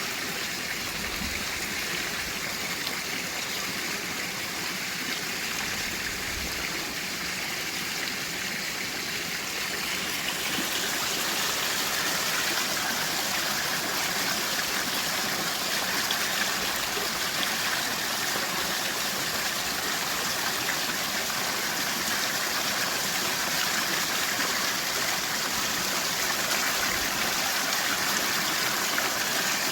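Waterfall and stream water rushing in a steady hiss, which gets brighter and a little louder about ten seconds in.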